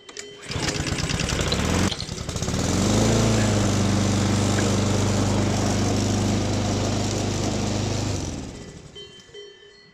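Petrol lawn mower engine starting up on fresh gasoline after a service. About a second and a half of rapid firing and a brief stumble come first, then it catches, rises in speed and runs steadily. The sound fades out about eight seconds in.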